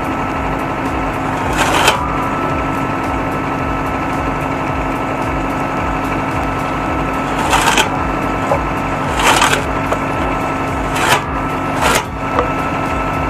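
Homemade wood chipper built from a combine harvester disc, running with a steady hum. About five short bursts of cracking and crunching come as branches are fed in and chipped.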